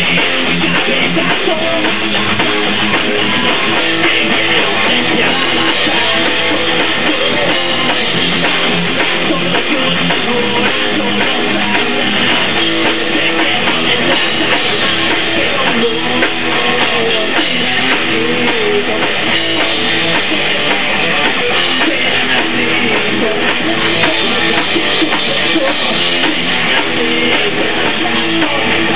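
Rock band rehearsing: electric guitar and drum kit playing a loud, continuous song.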